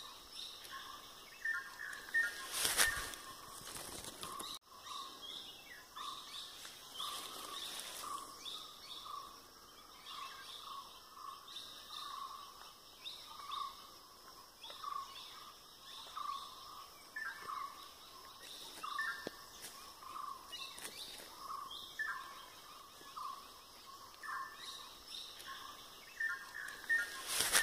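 Birds calling in a coffee plantation: one bird repeats short notes about once a second while others give brief higher chirps. There is a short burst of noise about three seconds in.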